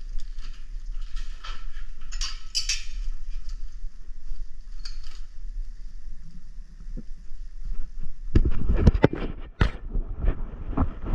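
Handling noise from work on an air-handler unit: scraping and rattling, then a cluster of loud knocks and clatters about eight seconds in.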